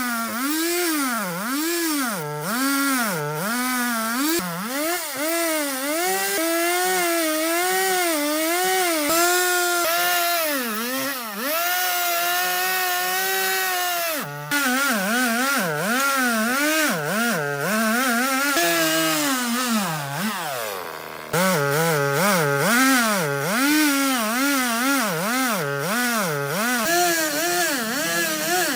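Chainsaw cutting into wood, its engine pitch repeatedly dipping under load and picking up again. About two-thirds of the way through, the pitch falls away as the throttle is let off, then full cutting starts again abruptly.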